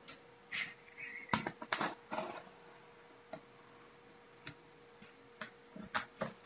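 Cardboard shipping box being handled: the cardboard and its packing tape crackle and knock under the hands. There are three sharp cracks about one and a half to two seconds in, then scattered light ticks.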